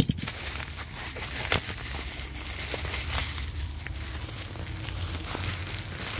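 Plastic courier mailer crinkling and rustling as it is handled and torn open at a corner, with many sharp crackles scattered through it.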